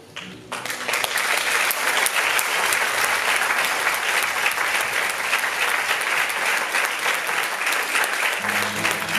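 Audience applauding: dense clapping breaks out suddenly about half a second in and keeps going. Near the end, music starts up again beneath the applause.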